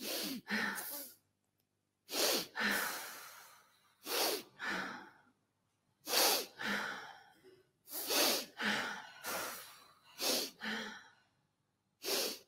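Forceful, rhythmic human breathing: sharp breaths in pairs about every two seconds, a short one followed by a longer one that fades out, with silence between.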